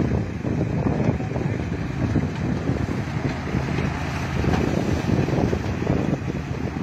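Tractor-drawn harvester working across a field: a steady rumble of engine and machinery, with wind buffeting the microphone.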